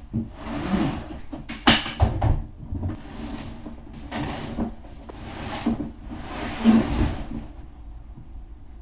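Cardboard boxes and other stored items being lifted, shifted and set down by hand: a run of scrapes, rustles and sharp knocks, dying away near the end.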